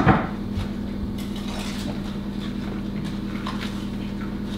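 Steady low hum with a few faint crunches of someone chewing thin Oreo cookies.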